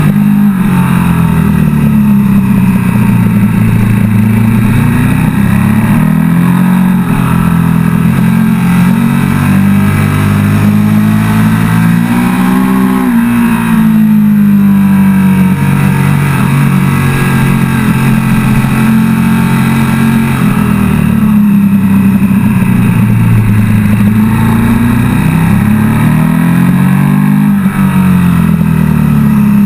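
KTM 1290 Super Duke GT's V-twin engine under hard riding on track: its pitch climbs as it accelerates and falls when it shifts or slows, with a sharp drop near the middle and another near the end.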